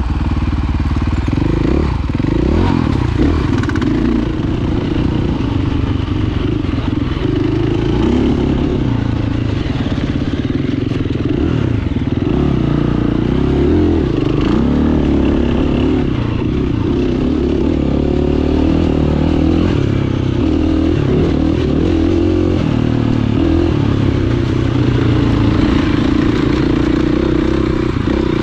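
Dirt bike engine running under load, its pitch rising and falling repeatedly as the throttle is worked on and off.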